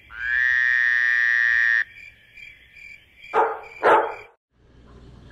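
Swamp frog and insect calls. A loud, steady call lasts about a second and a half at the start, over a thin high pulsing trill. Two short, sharp croaks follow about half a second apart.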